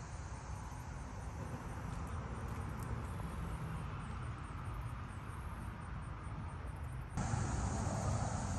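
Steady outdoor background: a low rumble with faint insect chirring. About seven seconds in it jumps abruptly louder and fuller, with a low rumble of road traffic.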